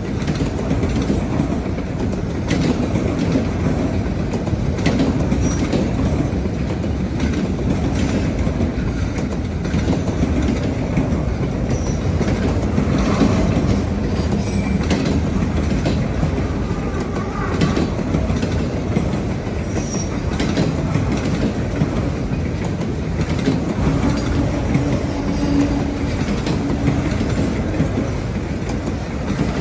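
Autorack freight cars rolling steadily past on the rails: a continuous rumble of steel wheels with occasional clicks over the rail joints.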